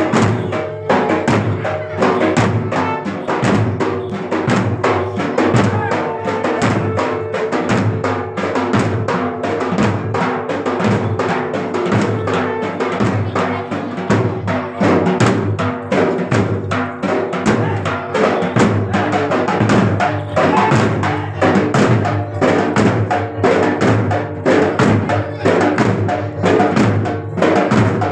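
Live drumming on a metal-shelled barrel drum, a fast steady beat of dense strokes that keeps going without a break.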